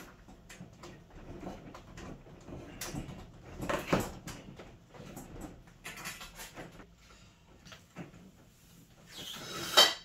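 Irregular knocks, clicks and scrapes of a fridge cabinet being handled and tipped back onto a wheeled dolly, with a heavier knock about four seconds in and a louder burst of scraping that ends in a sharp knock near the end.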